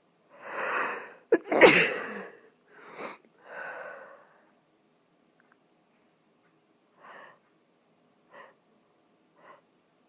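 A person sneezing hard: a noisy breath-in build-up, a sharp catch, then one loud explosive sneeze about a second and a half in. Two heavy breaths follow, and near the end a few short faint breaths.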